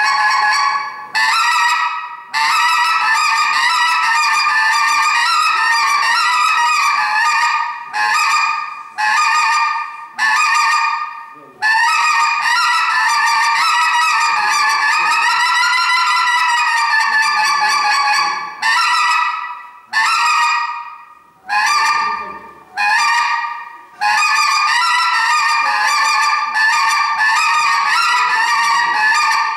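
A hand-blown reed call makes goose-like honking in long, wavering tones, broken by about a dozen short pauses.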